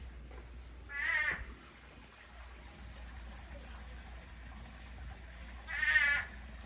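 An unidentified animal outside gives two short, harsh calls, each about half a second long and several seconds apart, described as really loud and sounding big. A steady high pulsing trill of crickets or other insects runs underneath.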